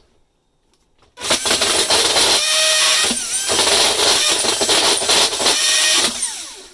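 Cordless drill driver spinning a universal hole saw, starting about a second in and cutting hard into the wooden backing behind a board for about five seconds, with a couple of brief breaks. This is the final cut-through, where the saw tends to bite and wrench the drill around.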